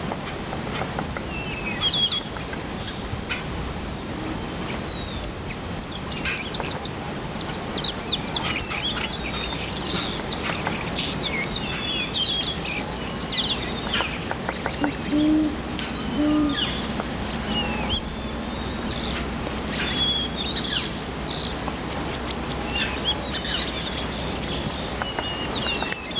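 Small birds chirping and calling over and over, short quick chirps that come in clusters, over a steady background hiss.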